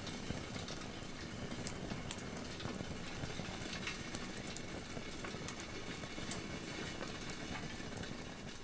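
Wood campfire crackling in a fire pit, with scattered sharp pops over a steady low rumble.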